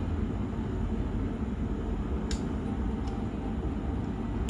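Small plastic clicks, one sharp click about two seconds in and a fainter one a second later, as a lancet is pushed into a plastic lancing device, over a steady low background rumble.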